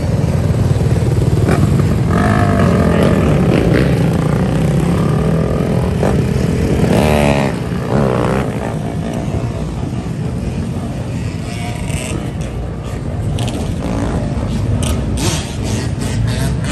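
Dirt bike and quad (ATV) engines running together as a group rides, with a quick rev that sweeps up and down in pitch about halfway through. Several short clattering knocks come near the end.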